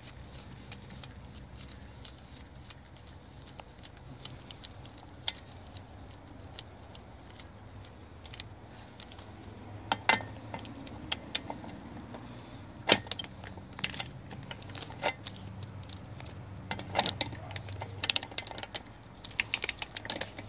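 Irregular metallic clicks and clinks of a propeller nut being spun onto an outboard's prop shaft by hand and a socket being fitted over it. A few sharp clicks stand out about ten and thirteen seconds in, and the clicking grows busier near the end.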